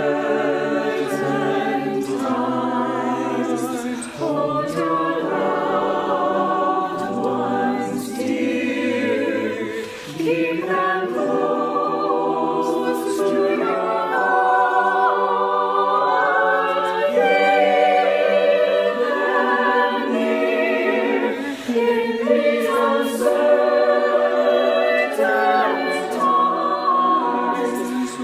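Mixed choir of men's and women's voices singing a slow song in sustained chords. The separately recorded home takes are mixed into one choir sound. The singing dips briefly between phrases, about four seconds in, near eight and ten seconds, and again later.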